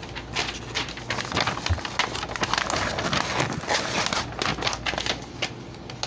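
A sheet of paper rustling and tearing in rough, irregular crackles as a multitool's seatbelt cutter is dragged through it. The cutter rips the paper rather than slicing it cleanly, the sign of a dull cutter with no proper razor blade.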